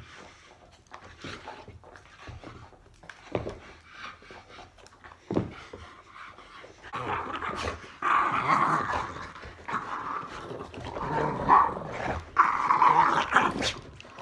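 Boston terrier and golden retriever play-fighting, growling at each other. The growling starts about halfway through and is loudest in the second half. A few thumps come earlier.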